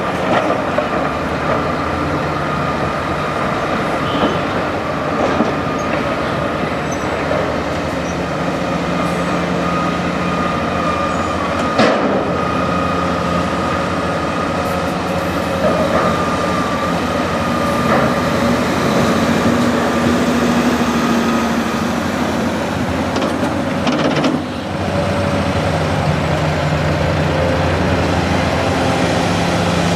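Hitachi Zaxis 470 LCH excavator's diesel engine working under load, with a steady whine and clanking as it digs and loads a dump truck; a sharp knock about twelve seconds in.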